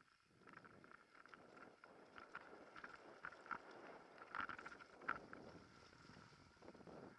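Faint mountain bike riding noise on a dirt singletrack: tyres rumbling over the ground, with scattered clicks and rattles from the bike and a thin steady high tone, plus some wind on the microphone.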